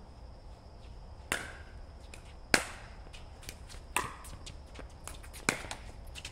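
Pickleball rally: paddles hitting the plastic ball with four sharp pops about a second and a half apart, with fainter knocks between them.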